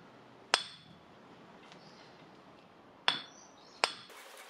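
Hammer tapping a chromed steel vice handle bar: three sharp metallic clinks, each with a brief high ring, one about half a second in and two close together after about three seconds.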